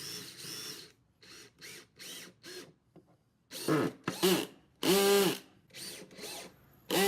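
Handling clicks and rustles as the drawer is fitted, then a cordless drill driving screws in several short trigger bursts. The longest burst, about five seconds in, spins up and back down.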